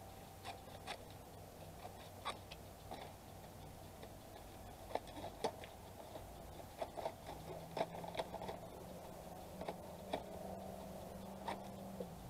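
Scissors snipping through a thin cardboard box: a faint, irregular scatter of sharp snips and paperboard crackles.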